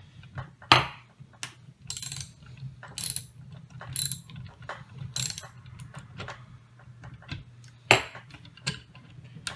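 Ratchet clicking in irregular strokes as the screw of an AK barrel press is backed off to release its threads, with two sharper knocks, one about a second in and one near the end.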